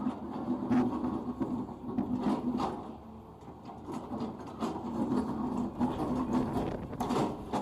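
Caterpillar 320D2 excavator's diesel engine working under load, swelling and easing off in turns, with scattered sharp clatters from the aggregate stones it is spreading.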